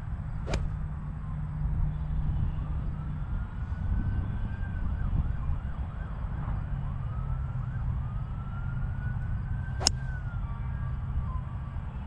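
An emergency-vehicle siren wails faintly, its pitch rising slowly, then wavering up and down, then rising again, over a low rumble of wind on the microphone. Two sharp clicks cut through it, one about half a second in and a louder one near the end.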